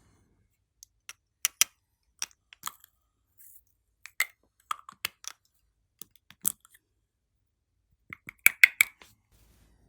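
Glossy slime being pressed and worked by hand, giving scattered sharp clicks and pops, with a quick run of louder pops near the end.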